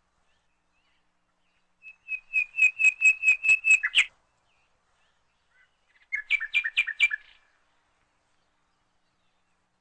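A bird chirping in two quick runs of repeated high notes, about five notes a second: a longer run of about eight notes a couple of seconds in, and a shorter run of about five notes past the middle.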